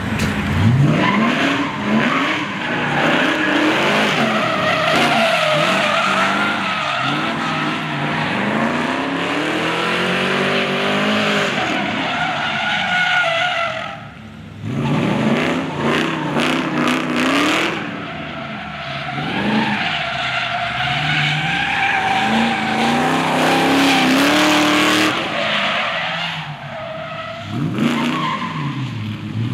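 A car doing a burnout: the engine revs up and down while the spinning tyres screech on the asphalt, with a short lull about halfway through before it revs and screeches again.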